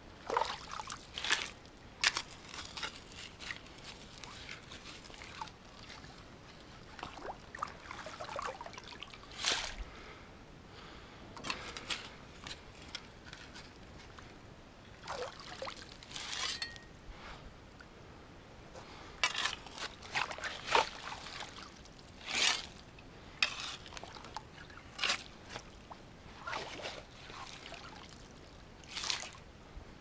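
Shallow creek water splashing and sloshing in short, irregular bursts every second or two.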